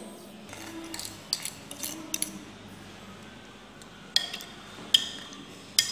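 Metal spoon clinking against a bowl while stirring sugar into milk with longan fruit: a few light taps, then three sharper, ringing clinks in the second half.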